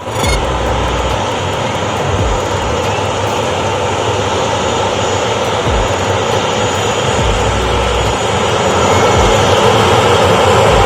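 Jet airliner's engines running: a loud, steady rush that grows a little louder near the end.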